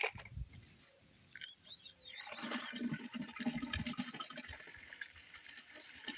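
Liquid pouring and sloshing, beginning about two seconds in, after a few faint bird chirps.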